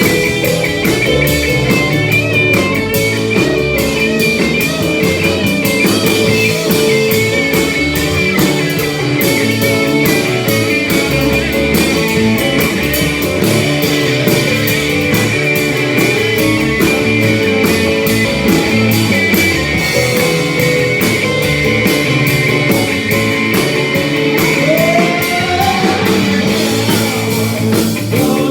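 Rock music with guitar and drums, a steady beat keeping on throughout.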